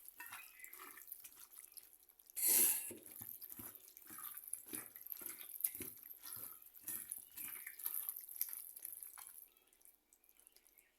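Water dripping and splashing in irregular small drops and patters, with one louder rush of water about two and a half seconds in; it dies away near the end.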